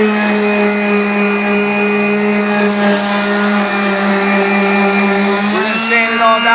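Electric power sander running with a steady high whine.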